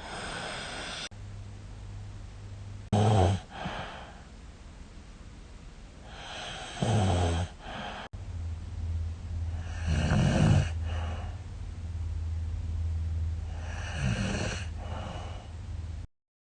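A woman snoring in her sleep: four loud snores, one every three to four seconds, over a steady low hum. It is the snoring she suspects of being a sign of sleep apnea.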